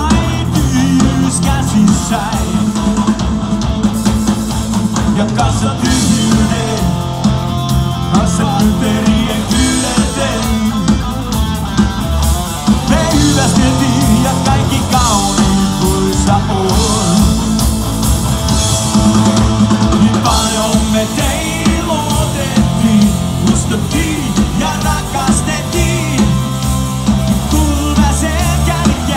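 Live rock band playing loud: electric guitar, bass guitar and drum kit, with a man singing into the microphone.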